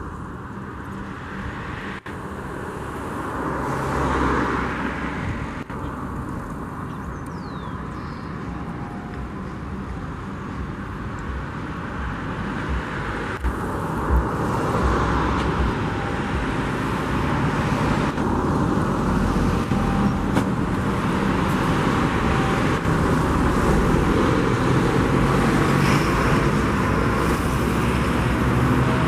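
Road traffic noise: a steady rumble of vehicles with several swells as they pass, growing louder in the second half.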